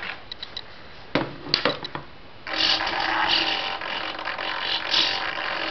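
Hitec HS-7950TH digital servos driven by a JR R922 receiver, jittering and jolting: a few sharp clicks, then from about halfway in a continuous buzzing chatter. The jitter is the sign of the glitch the owner is chasing in this receiver and servo setup.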